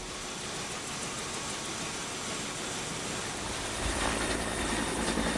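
An engine running steadily, with a low rumble growing louder about four seconds in.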